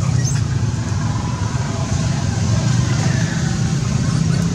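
A steady low rumble throughout, with no distinct calls standing out above it.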